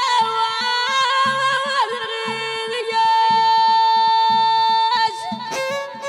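Middle Atlas folk music: an ornamented melody with one long held note in the middle, over a steady drum beat. A new, busier string passage begins near the end.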